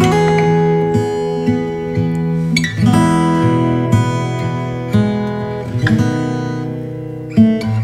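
Background instrumental music on acoustic guitar: plucked chords ringing out and changing every second or so.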